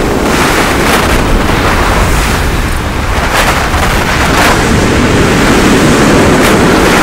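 Wind buffeting the microphone over waves breaking on a pebble beach: a loud, continuous rush with a heavy low rumble, swelling briefly a few times.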